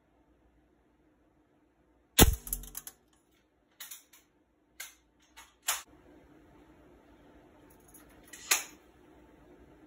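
Western Auto Revelation pump-up air rifle firing a pellet about two seconds in: one sharp crack with a low thump under it. Several lighter clicks follow, and another sharp click near the end.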